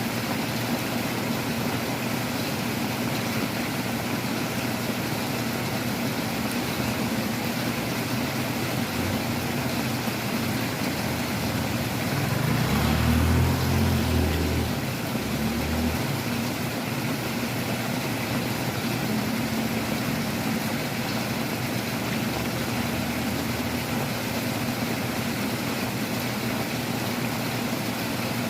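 Heavy rain and strong wind, a steady hiss. About halfway through, a low rumble swells for three or four seconds, the loudest part, then fades.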